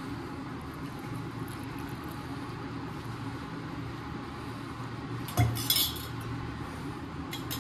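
Kitchen vessels and utensils clinking as lemon sharbat is strained and served: one short clatter about five and a half seconds in and a light clink near the end, over a steady low hum.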